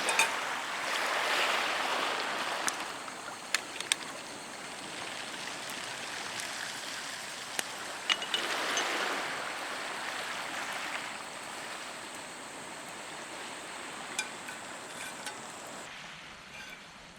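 Small waves washing onto a beach, the wash swelling twice about seven seconds apart, with a few sharp clicks.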